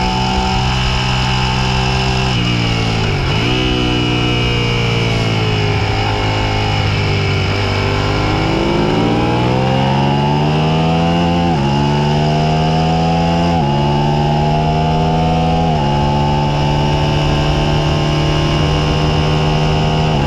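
Suzuki SV650 90-degree V-twin race bike engine heard onboard at speed. The revs fall sharply about two seconds in, then climb hard from about eight seconds, with three quick upshifts about two seconds apart. A steady wind rush runs underneath.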